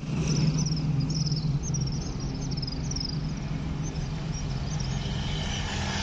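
Low steady hum of an approaching superfast train, with a run of short high chirps repeating through the first half.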